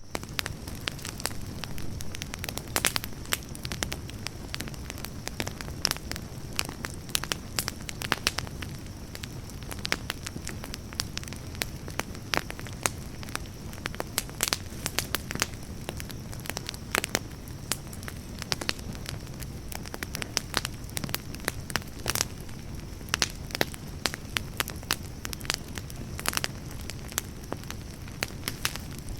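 Campfire burning, with frequent irregular crackles and pops over a steady low rumble of flame.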